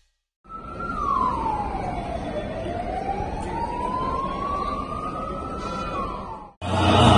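A siren wailing: one slow fall in pitch, then a long slow rise, over a steady hum of street and crowd noise. It cuts off suddenly near the end.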